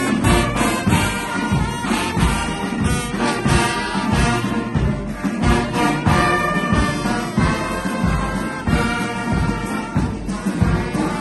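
Marching brass band of trumpets, trombones, euphoniums and sousaphones playing together over a steady beat.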